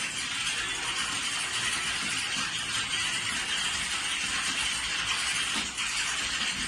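Many computer keyboards typed on at once, a dense continuous clatter of overlapping keystrokes like a room full of candidates in a typing test.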